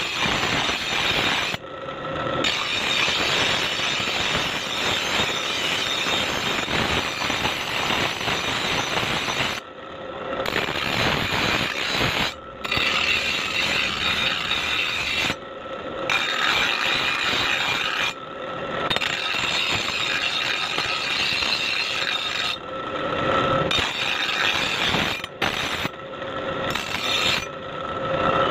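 Electric grinder's abrasive wheel grinding the steel edge of an axe head, a dense hiss that breaks off briefly every few seconds as the blade is lifted away. In the gaps the grinder motor's steady tone carries on.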